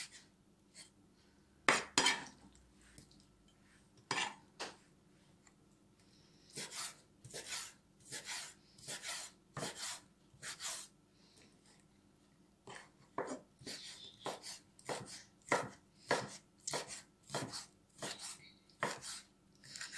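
Kitchen knife chopping squid into small dice on a wooden cutting board: a run of sharp knocks of the blade on the board, a few scattered ones at first, then about one or two a second with a short pause around the middle.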